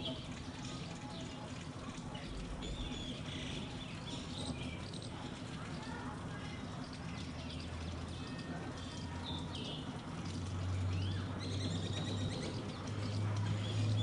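Birds chirping here and there over a steady trickle of water running from a tap, with a low hum that grows louder in the last few seconds.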